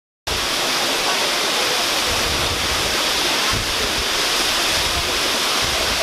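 Waterfall dropping into a rock pool: a steady, even rushing of falling water that cuts in just after the start.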